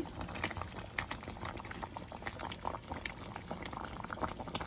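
Chicken curry gravy bubbling and popping as it simmers in a pan, a quick irregular crackle of small bursting bubbles, with a spatula stirring through it.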